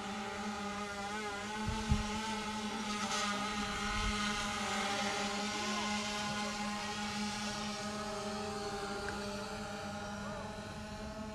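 A steady engine-like drone whose pitch wavers slightly, with a single thump about two seconds in.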